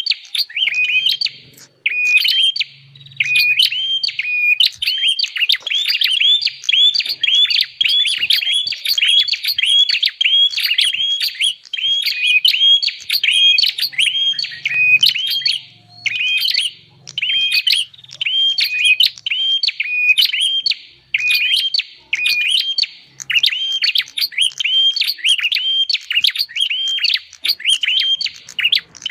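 Prenjak (prinia) bird-lure recording: a loud, rapid run of high, sharp chirps, about two to three a second, with a few short breaks.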